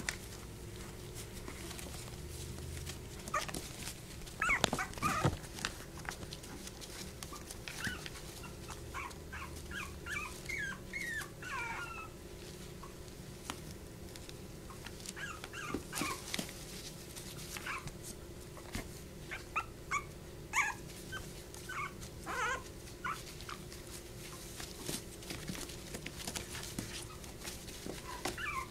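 Young puppies whimpering and yipping in many short, high-pitched cries, some bending up or down in pitch, with small scratches and clicks from their claws on the plastic tub. A faint steady hum runs underneath.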